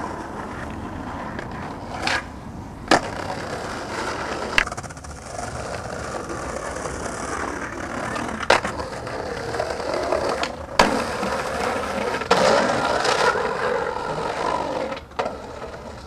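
Skateboard wheels rolling over paving with a continuous rough noise, broken by about five sharp clacks of the board hitting the ground, and a louder, rougher stretch of rolling or scraping near the end.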